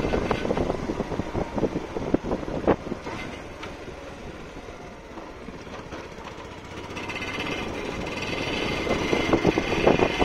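Motorcycle engine running while riding along a road, its sound easing off in the middle and building up again toward the end.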